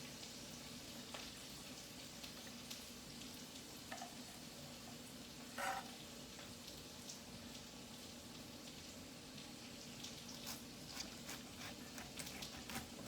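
Food sizzling in a frying pan: a steady, fairly quiet hiss, with a few light utensil clicks near the end.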